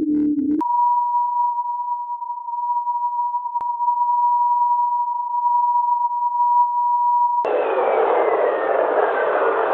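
Spacecraft signal data turned into sound: a steady, pure electronic tone with a single click partway through. About three-quarters of the way in it cuts abruptly to loud static-like hiss, with a faint whistle gliding slowly down in pitch.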